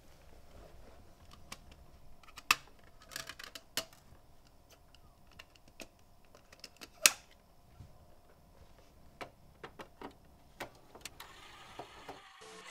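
Plastic clicks and snaps of a slim CD case being handled and opened and a CD-R pried out of it, with two sharp snaps about two and a half and seven seconds in, and a short rustle near the end.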